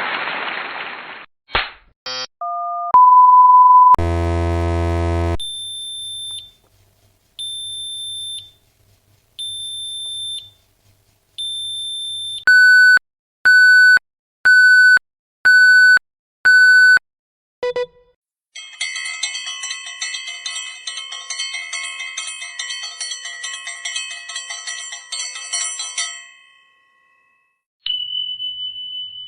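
A run of short electronic sound effects, one after another: a noise that fades out, a couple of quick two-note beeps, a steady beep lasting about a second, a low buzzer, four spaced high beeps, then five loud beeps. After that comes a long stretch of rapid ringing that stops, and a single ding near the end.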